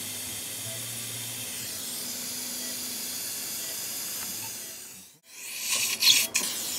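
Steady hiss of a dental implant drill handpiece at work on the jaw. About five seconds in the sound breaks off, then a louder, brighter hiss comes in for the last second and a half.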